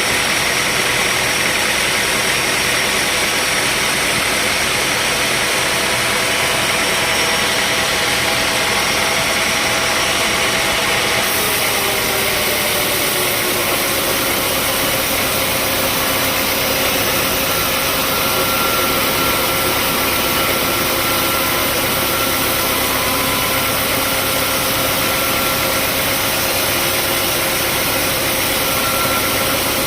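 Sawmill machinery running: a steady engine drone with a hiss over it. About eleven seconds in the sound changes abruptly and the engine's tones settle a little lower.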